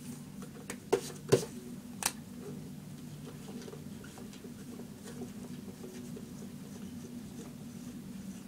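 Marker being handled and uncapped, three sharp plastic clicks in the first two seconds, then the faint scratch of a felt-tip marker writing on a whiteboard over a steady low hum.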